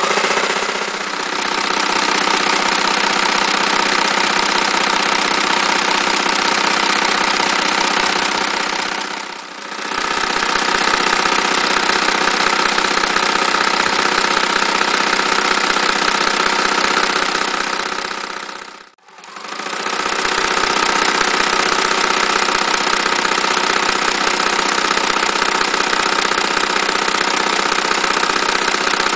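Frister Rossmann Cub 4 electric sewing machine running steadily, its motor and needle mechanism stitching through fabric. It slows briefly about a third of the way in, stops for a moment about two-thirds in, then runs on.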